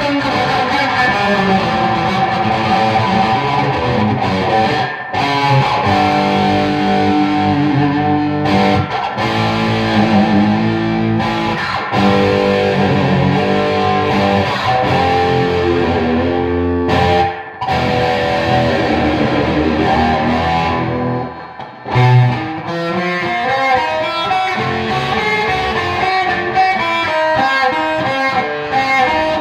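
Music led by electric guitar with a distorted, effected tone; it drops out briefly twice in the second half.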